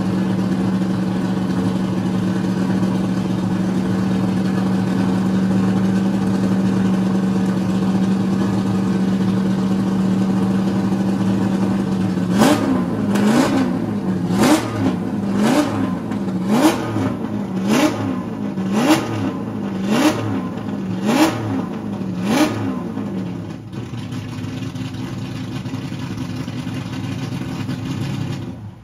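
Rover SD1 3500's 3.5-litre V8 idling steadily, then blipped about ten times, roughly once a second, each rev rising sharply and falling back. After the blips it settles back to a quieter idle.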